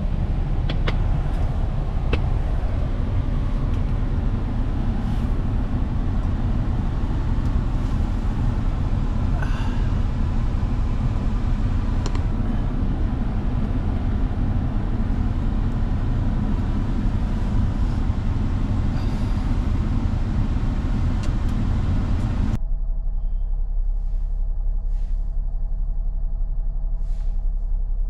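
A steady low vehicle rumble. About 22 seconds in, the higher hiss cuts off abruptly, leaving the low rumble and a few faint steady tones.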